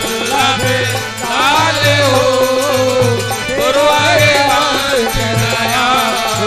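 Devotional naam-dhun music: a chant of the divine name sung to a melody over a steady, regularly pulsing drum beat.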